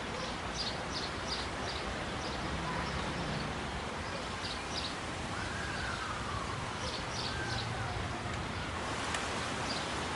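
Outdoor ambience: a steady background hiss with small birds chirping in several short groups of quick, high chirps.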